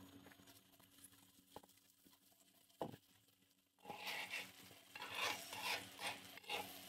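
A metal spatula scrapes the flat iron tawa in a run of irregular strokes, starting about four seconds in, as it turns stuffed okra frying in oil. Under it a faint sizzle of frying, and a single knock a little before that.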